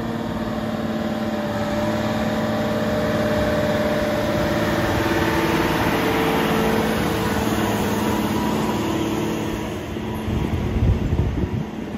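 Case IH Quadtrac 470 tractor driving past, its diesel engine running steadily and growing louder as it nears, loudest about midway, then easing off. Near the end the towed John Deere 2310 mulch finisher rattles and clunks as it goes by.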